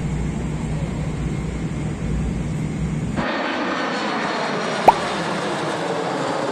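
Steady airliner cabin drone with a low hum. About three seconds in it cuts abruptly to the even rushing noise of a jet airliner on approach with its landing gear down, with one short click about five seconds in.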